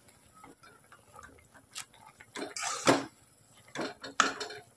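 Spatula scraping and knocking against a metal kadai while stirring noodles cooking in water, in two short bursts of strokes, about two and a half seconds in and again near the end.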